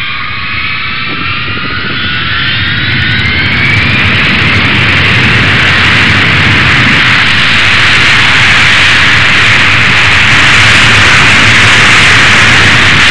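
Jet aircraft engine: a whine rising in pitch over the first few seconds that broadens into a loud, steady jet noise, easing slightly near the end.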